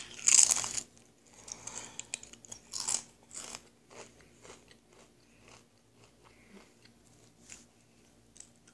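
A loud crunch as a Pringles potato crisp is bitten, then softer crunching chews every half-second or so that fade away.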